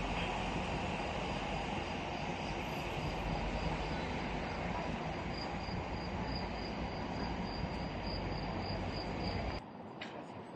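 Steady outdoor background noise, an even wash with a faint high thin tone in the second half; it drops away abruptly near the end.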